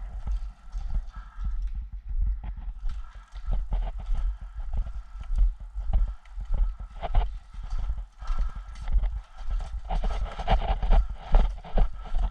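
Footsteps of a person walking on hard ground, a dull thump about twice a second with kit rattling at each step.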